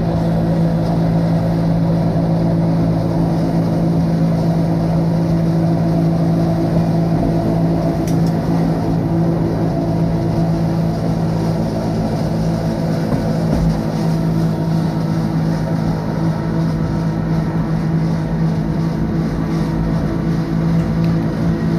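Wengernalpbahn electric rack-railway train running steadily, a constant low hum from its drive over the rumble of the wheels on the track.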